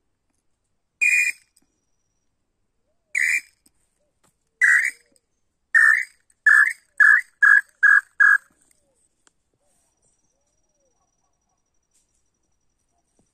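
Tataupa tinamou singing: a series of nine loud whistled notes that come faster and faster and fall slightly in pitch, ending in a quick run of notes about eight and a half seconds in.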